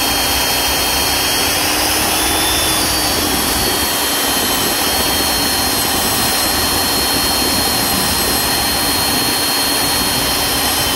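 Hougen HMD904 magnetic drill running under load, its motor whining steadily as the annular cutter bores through metal and throws off curled chips. The whine shifts slightly in pitch about three seconds in.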